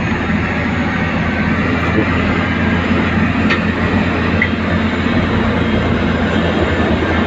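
Hino 500 hook-lift truck's diesel engine running loud and steady as it drives the hydraulic arm tipping a loaded rubbish container.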